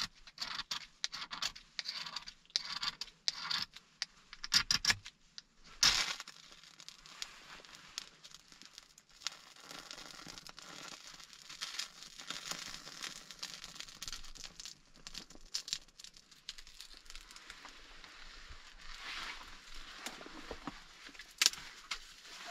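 Knife blade scraping birch bark into curls in quick repeated strokes, with a couple of sharper, louder scrapes about five and six seconds in. Then the birch bark burns with a steady crackle, and there is one sharp click near the end.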